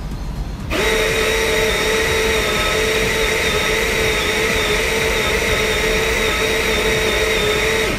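Electric espresso grinder starting up a little under a second in and running with a steady whine while it grinds coffee beans into a dosing cup, stopping near the end.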